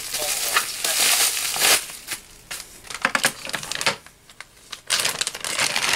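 Clear plastic bag crinkling and rustling as it is handled, with wooden toy train track pieces inside. The crinkling is dense for the first two seconds, drops to a few light clicks for a few seconds, and returns near the end.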